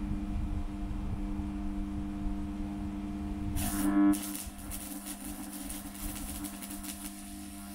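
Steel tubing being arc-welded: a short loud burst just before halfway, then the fine, steady crackle of the welding arc. A steady low hum runs underneath throughout.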